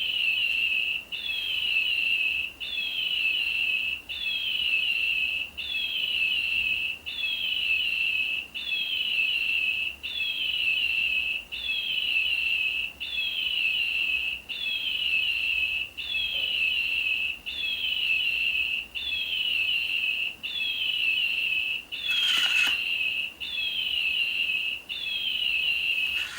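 Electronic toy bird chirping in a mechanical loop: the same falling tweet repeats about every 1.5 seconds, without variation. A single click sounds near the end.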